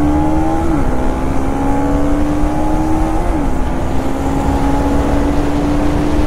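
Motorcycle engine pulling under way, its pitch rising a little and dropping twice as it shifts up a gear, then holding steady at cruise. Heavy wind rumble on the rider's microphone.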